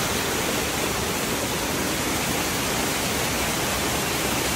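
Rushing water of a rocky stream pouring over boulders: a steady, even rush with no change.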